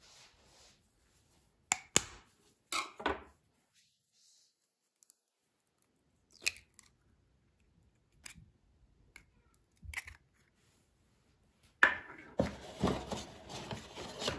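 An egg being cracked by hand over a plastic microwave egg poacher tray: scattered sharp taps and clicks of the shell, then a dense run of crunching and rubbing near the end as the shell is pulled apart and handled.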